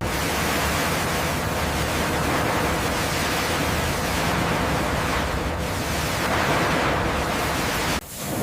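Steady rushing noise of sea surf, with a low rumble underneath, cutting out briefly about eight seconds in.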